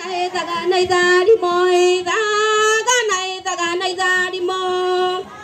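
A high-pitched voice singing a melody in long held notes, with short breaks between phrases.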